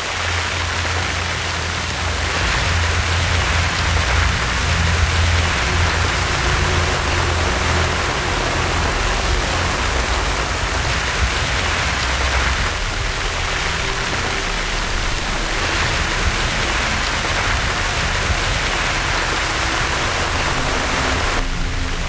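Heavy rain pouring down: a steady, even hiss with a low rumble underneath.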